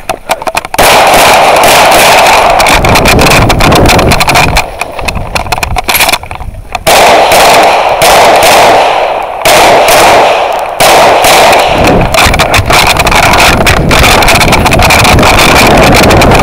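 Semi-automatic pistol fired in rapid strings of shots, with short pauses between strings. The shots are very loud and clip the recording, heard from the shooter's own position.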